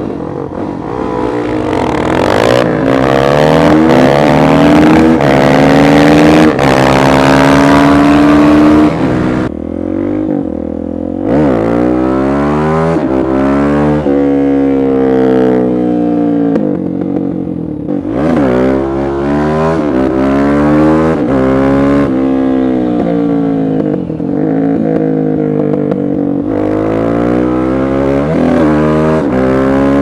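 Single-cylinder supermoto motorcycle engine accelerating hard, its pitch climbing in long pulls and dropping off several times as the throttle is closed or the gears change. Wind rushes over the microphone while the bike is moving fast.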